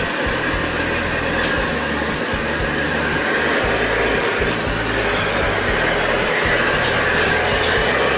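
Gas wok burner running at full flame, a steady rushing noise, with food sizzling in the wok as it is tossed. A few light metal clinks near the end.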